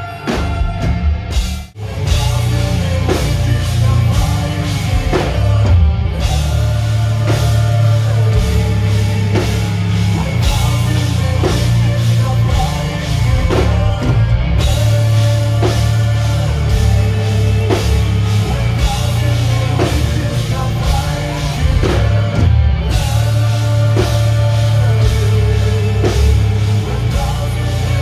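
Live heavy metal band playing over a stage PA: drum kit, electric guitars and bass, with a woman singing. The band stops short for a moment about two seconds in, then plays on steadily.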